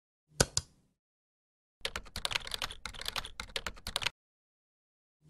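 Computer keyboard typing: a quick run of keystrokes lasting a little over two seconds. It is preceded by two sharp clicks in quick succession.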